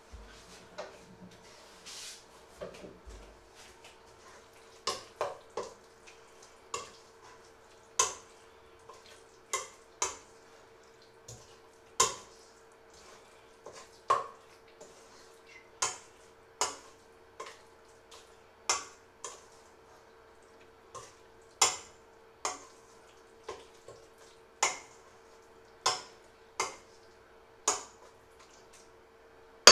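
Metal spoon stirring thick egg batter in a stainless steel mixing bowl, knocking sharply against the bowl's side about once a second, with wetter sloshing between strokes. A faint steady hum runs underneath.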